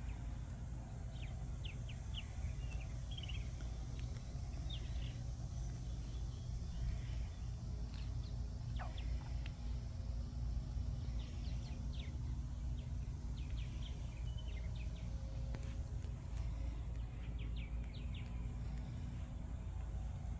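Outdoor garden ambience: small birds chirping in short scattered calls throughout, over a steady low rumble and a faint steady hum.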